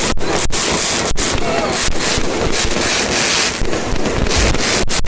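Dense fireworks barrage, a loud continuous crackling roar that overloads the recording, broken by a few split-second dropouts.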